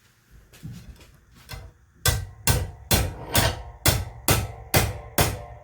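Hammer striking the end of a multi-section cleaning rod down a rifle barrel to knock a Cerrosafe chamber cast out of the chamber: a few light taps, then from about two seconds in sharp, evenly spaced blows, about two a second, each with a short metallic ring.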